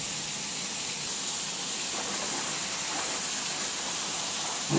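Torrential rain falling steadily, a dense even hiss of water.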